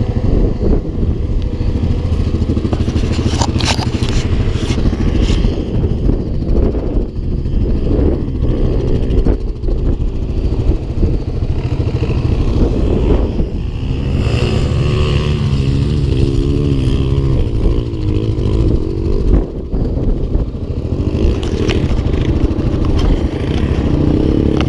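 Quad bike engines running: the camera quad's single-cylinder Yamaha Grizzly 700 engine ticks over close by, while other quads rev as they ride over the dunes. Near the end a quad gets louder as it rides up towards it.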